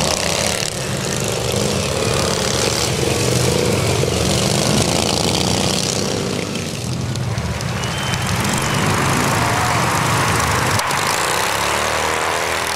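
Several racing riding lawn mowers' small engines running together as they lap the track. Near the end one mower is heard close by.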